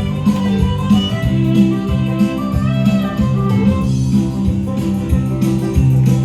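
Live band playing an instrumental passage, guitar to the fore over bass and a steady beat.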